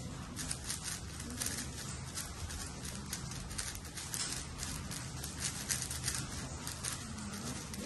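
A 6x6 speed cube's plastic layers clicking and clacking as it is turned fast, in a dense, irregular run of quick clicks.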